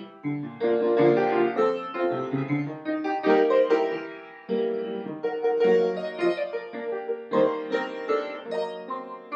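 Background piano music, with many struck notes following one another quickly.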